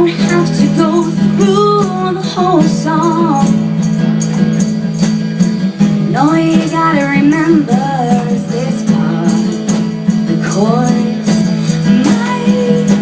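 A song: a voice sings the melody in phrases over held chords, with a high, jingling percussion beat keeping steady time.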